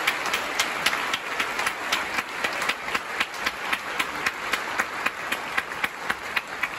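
Concert hall audience applauding, with one pair of hands near the microphone clapping loudly and steadily about three times a second over the dense clapping of the crowd.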